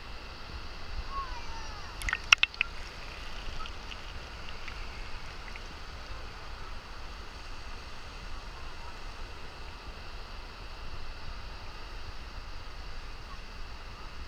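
Ocean surf breaking and washing in as a steady rush, with low wind rumble on the microphone. A quick cluster of sharp clicks or knocks comes about two seconds in.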